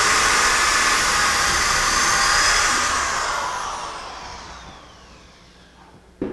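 Corded DeWalt drill running a collared pocket-hole bit through wood in a pocket-hole jig, a steady high whir. About three seconds in the trigger is let go and the drill winds down, its whine falling in pitch as it fades. A sharp click near the end.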